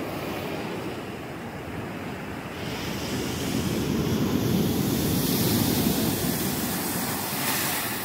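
Ocean surf: a steady wash of breaking waves that swells about three seconds in, is loudest in the middle, then eases off.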